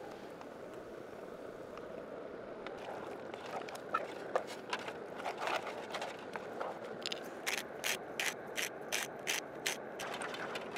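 A utensil scraping and clicking against a small camping pan as thick mashed potato is stirred. The strokes start as scattered scrapes and settle into a quick regular rhythm of about three a second in the second half, over a steady hiss.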